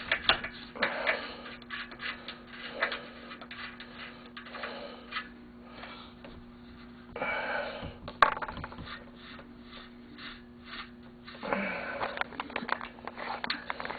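Light clicks, knocks and scrapes of hand work on snowmobile engine parts, with one sharp click a little past the middle, over a steady low hum that stops about three quarters of the way through.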